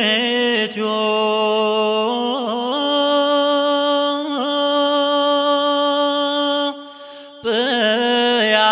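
Ethiopian Orthodox liturgical chant (zema) sung on long, steady, drawn-out notes with brief wavering melismatic turns. The pitch steps up slightly about a third of the way through, and there is a brief gap about three-quarters of the way in.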